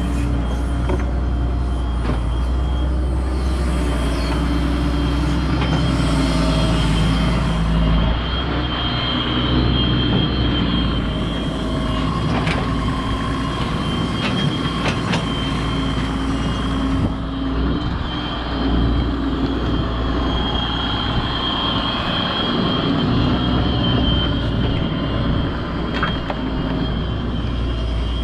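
Hitachi EX125WD wheeled excavator's diesel engine running under load as it digs, with a steady high whine over the low engine hum and a few sharp knocks.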